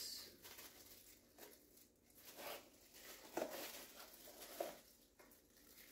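Faint rustling and crinkling of plastic packaging being handled, a few short rustles spread through.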